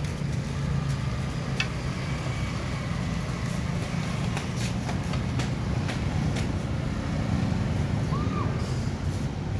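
Steady low rumble of street motor traffic, with scattered sharp crackles from a burning pile of joss paper being stirred with a metal rod. A short chirp sounds near the end.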